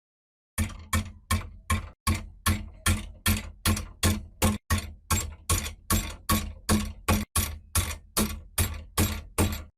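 Hammer striking repeatedly in a steady rhythm, about two and a half blows a second, each blow sharp with a short ring. The strikes begin about half a second in and break off briefly three times.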